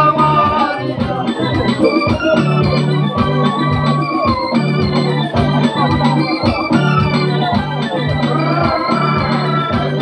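Loud music with a steady beat and a heavy, pulsing bass line under a melody.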